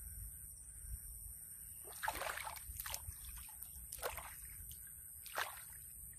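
Hands splashing and sloshing in shallow muddy rice-paddy water while groping for freshwater crabs: a few short splashes, the longest about two seconds in.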